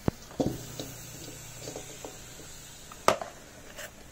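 A ladle knocks and scrapes as lumps of butter are scooped from a plastic tub and dropped into a metal kadhai. There are a few sharp knocks with softer taps between them, and the loudest knock comes about three seconds in.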